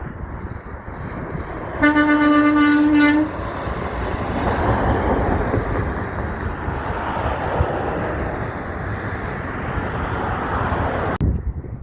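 A truck's horn gives one steady single-note blast of about a second and a half, then the truck passes with a swelling rush of engine and tyre noise that cuts off abruptly near the end.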